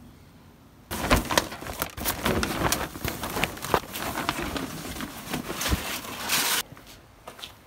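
A fabric barbecue cover being dragged off the grill: continuous rustling and crackling with many small scrapes, starting about a second in and stopping abruptly near the end.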